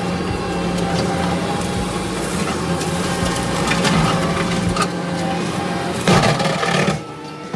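Kubota SVL65 skid steer's diesel engine running steadily while its brush cutter shreds brush and wood, with scattered cracking. There is a louder burst of shredding about six seconds in, and the sound drops off near the end.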